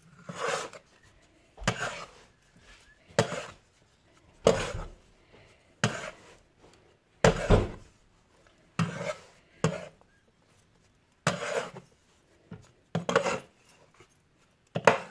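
About a dozen rhythmic scraping or rubbing strokes, roughly one every second and a half, each with a dull knock.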